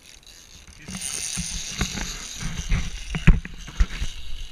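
Irregular knocks and bumps of movement and handling aboard a small fishing boat, the loudest a little past three seconds in, over a steady hiss that starts about a second in.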